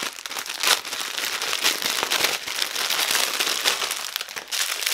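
Clear plastic film and plastic wrapping on a rolled diamond painting canvas crinkling and crackling as hands unroll and handle it, in a continuous irregular run of small crackles.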